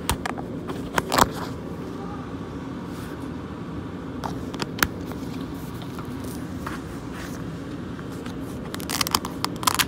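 Handling noise from a covered phone microphone: a few sharp knocks and rubs against the mic, the loudest about a second in and a cluster near the end, over a steady low hum.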